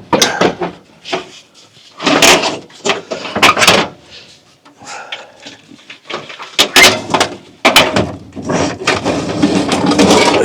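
International Scout 800 dashboard panel knocking and scraping against the cab as it is worked loose and lifted out, in several irregular bursts of clunks and rattles.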